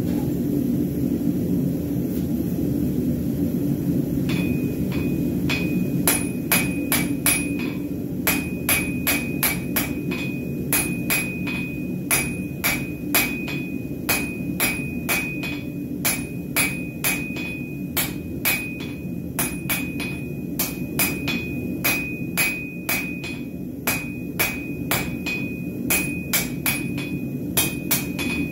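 Hand hammer striking a hot bar on a steel anvil, about two blows a second, drawing half-inch round stock down to 3/8 square; each blow rings the anvil with a clear high tone. The blows begin about six seconds in, over a steady low roar from the gas forge.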